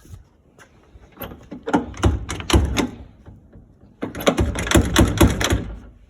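Plastic car door trim being tugged and worked loose: two spells of rapid clattering knocks and clicks as the piece refuses to come out.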